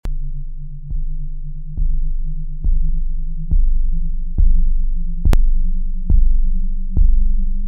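Calm ambient music from a VCV Rack software modular synth. A low, steady drone that slowly rises in pitch, with a deep bass pulse about every 0.9 seconds that fades before the next one, and a sharp click about five seconds in.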